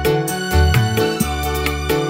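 Live dangdut koplo band playing an instrumental passage without singing: keyboard melody over bass and drum hits in a steady beat.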